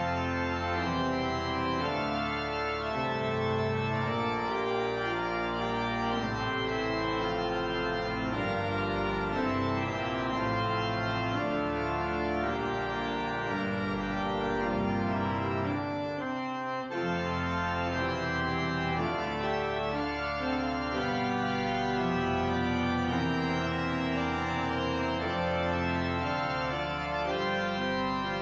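Church organ playing held chords over changing bass notes, with a short break about sixteen seconds in.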